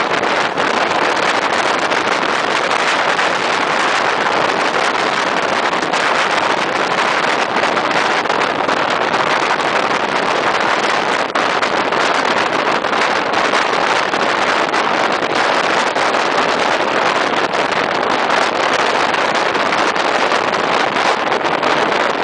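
Steady loud rush of wind and running noise from a moving regional passenger train, heard at an open carriage window with the air buffeting the microphone.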